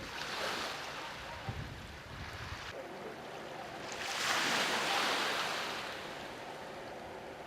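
Sea waves washing over a rocky reef, surging twice, the second surge about halfway through the loudest, with a brief low wind rumble on the microphone between them.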